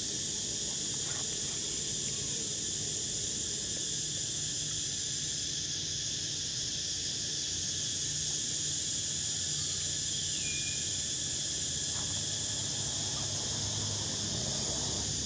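Steady, high-pitched chorus of insects running without a break. About ten seconds in there is one short call that falls in pitch.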